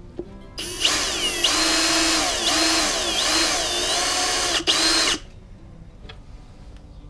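Electric drill running in bursts, its motor pitch dipping and recovering as it bores out screw holes in a headlamp assembly, with a brief stop near the end before a last short run. The bit is badly worn.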